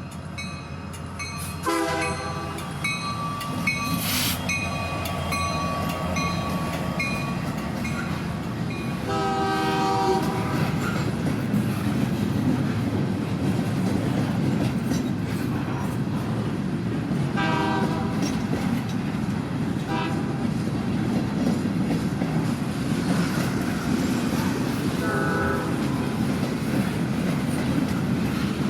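Narrow-gauge steam train running, with a steady rumble and clatter of the wheels on the track, and its whistle sounding four short blasts spread out several seconds apart.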